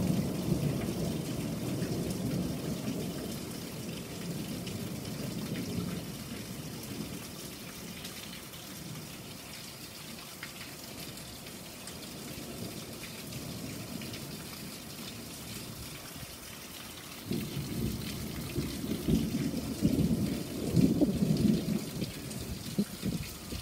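Thunder rumbling and dying away over the first few seconds, then steady rain. About two-thirds of the way in, a new roll of thunder starts, with several loud rumbles.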